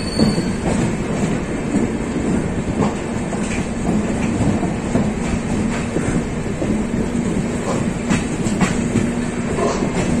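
Rajdhani Express passenger coach running along the track: a steady rumble of wheels on rails with a low hum, and a few scattered clicks as the wheels pass over rail joints.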